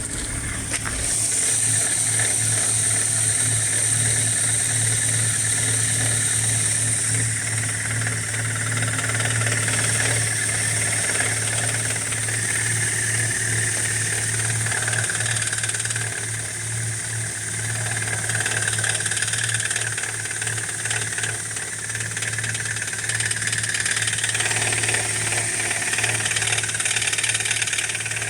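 BMW N46B20 2.0-litre four-cylinder petrol engine running after a cold start with a steady clatter from the hydraulic lifters, like a bucket of nails. This is the cold-start lifter knock that dies away once the engine has run for a short while.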